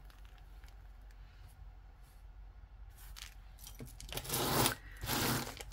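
A beaded necklace handled in the hands, with a few faint clicks, then two short rustling scrapes about four and five seconds in.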